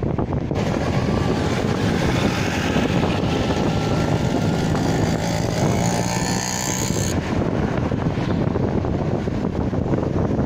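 Road and wind noise from a moving car, with wind rushing over the microphone. From about half a second in until about seven seconds in, a nearby motorcycle engine runs close alongside and adds a louder hiss over the noise, then fades back.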